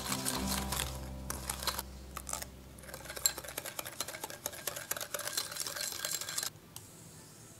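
Small wire whisk clicking and scraping against a glass bowl, briskly mixing matcha, sugar and water into a smooth liquid. The whisking stops about a second before the end.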